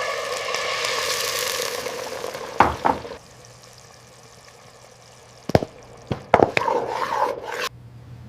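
Food sizzling in a frying pan, stopping about three seconds in. Later come several sharp knocks and a short burst of stirring or liquid-like noise that cuts off abruptly near the end.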